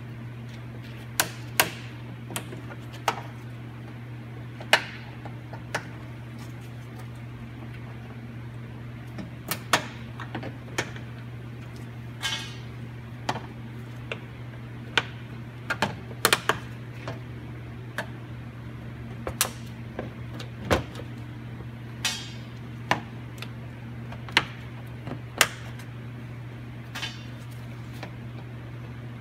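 Plastic push-pin retainers on a pickup's radiator core-support cover being pried out one after another with a hand tool, a couple of dozen irregular sharp clicks and snaps with a few short scrapes of plastic. A steady low hum sits under it.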